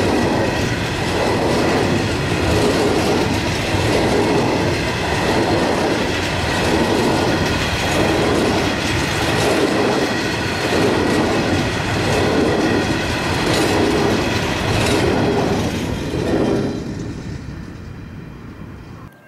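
Empty ex-Leigh Creek coal hopper wagons rolling past on jointed track, a steady clatter that swells about once a second as each wagon's bogies go by. It fades away after the last wagon passes near the end.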